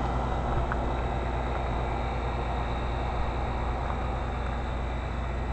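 Steady low mechanical drone of an engine running, with an even rumble and no changes.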